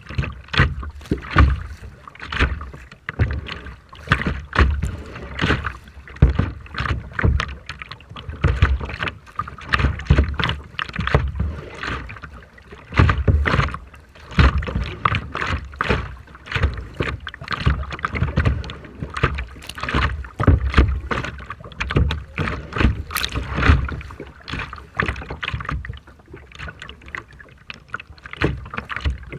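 Rough sea water sloshing and splashing in uneven surges, with wind buffeting the microphone.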